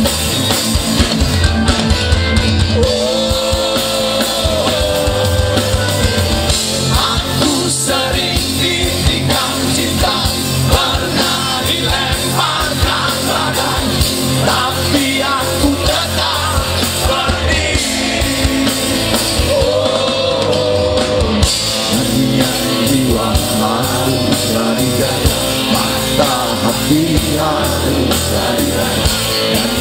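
A rock band playing live, with strummed acoustic guitar and singing.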